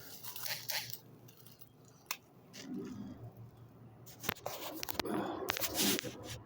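Pruning shears snipping through branches: several sharp, irregularly spaced snips, with leaves and twigs rustling near the end.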